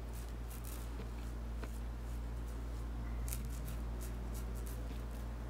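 Supply SE single-edge safety razor scraping through lathered beard stubble: a series of short, scratchy strokes, with a busier cluster about three seconds in, over a steady low hum.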